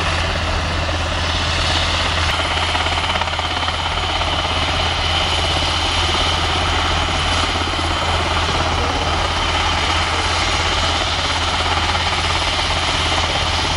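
NH90 (Hkp 14) twin-turbine military helicopter running on the ground with its main rotor turning: a steady high turbine whine, a little louder from about two seconds in, over a constant low rotor rumble.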